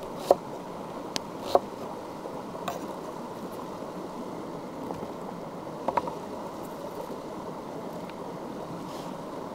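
Stream water flowing steadily, with several short sharp clicks scattered through; the loudest come just after the start, about a second and a half in, and about six seconds in.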